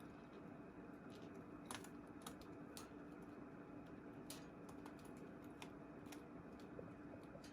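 Faint, irregular sharp clicks, about a dozen, from baby budgies moving and pecking about their cage, over a steady low hum.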